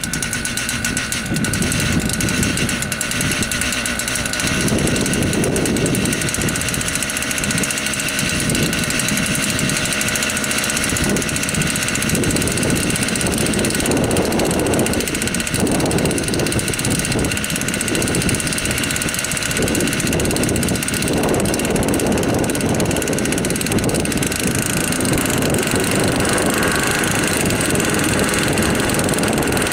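The 121.6 cc two-stroke engine of a Helipse HE 300 unmanned helicopter runs steadily on the ground as its rotors turn, giving a constant high whine. Gusts of wind rumble irregularly on the microphone.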